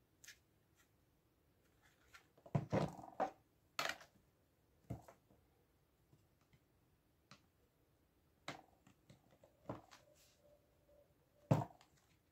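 Scattered clicks and knocks of a plastic wireless-speaker casing being handled and screwed back together, with a close cluster about three seconds in and a sharp knock near the end.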